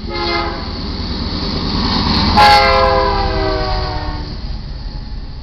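GE C44-9W diesel locomotive's air horn sounding at a grade crossing: a short blast, then about two seconds later a louder, longer blast that falls slightly in pitch as the locomotive passes. Under the horn, engine and wheel rumble build and then ease.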